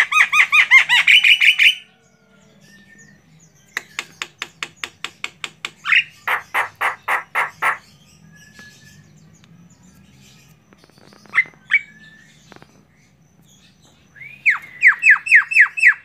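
Female Javan myna (jalak kebo) calling vigorously in loud runs of rapid, harsh repeated notes, about seven or eight a second. There is a run at the start, a clicking run about four seconds in, and another run right after. Two short single calls come at about eleven seconds, and a last run comes near the end.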